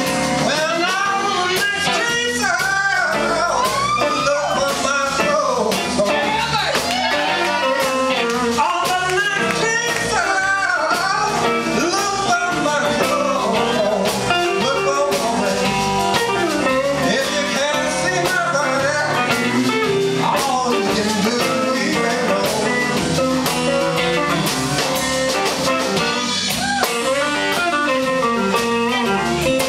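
Live blues band playing a slow number: a male voice singing over electric guitar, bass and drums.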